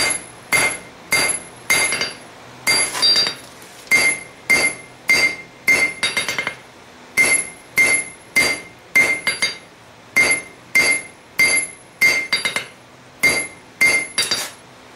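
Blacksmith's hand hammer striking a red-hot railroad spike on the anvil, about two blows a second, each with a ringing metallic note from the anvil, as the steel is drawn out into a taper.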